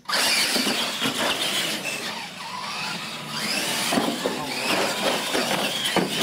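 Electric RC monster trucks of the Tamiya Clod Buster type racing: motors and gears whining, rising and falling in pitch with the throttle. There are a few sharp knocks as the trucks hit and land off the ramps.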